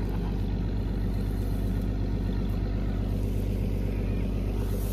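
Farm vehicle's engine running steadily at a low, even pitch.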